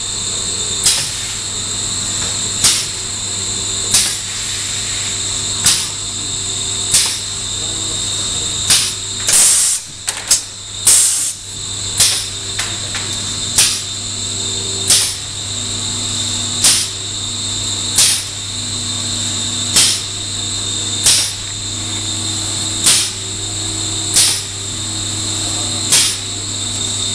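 Errepi Vittoria 1600 automatic machine running: a steady hum with a high whine, and a sharp mechanical clack about every one and a half seconds as it cycles. A louder burst of clattering comes about ten seconds in.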